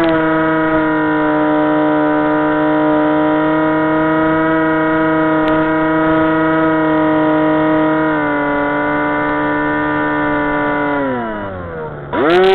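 Aerobird 3 RC plane's electric motor and propeller whining at a steady pitch. It dips slightly about eight seconds in, then winds down in pitch near the end as the motor slows, and surges back up just before the end.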